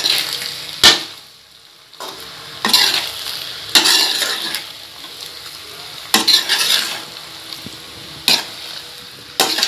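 A spatula stirring and tossing penne pasta in a wide metal kadai, scraping along the pan in strokes every one to two seconds, with a sharp knock against the pan about a second in. A low frying sizzle runs underneath.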